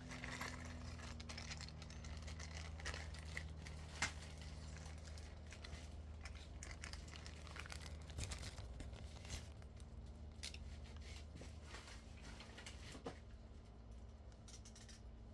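Rustling, crinkling and scattered clicks of ceiling fan blades and parts being handled and sorted, with one sharper knock about four seconds in, over a steady low hum.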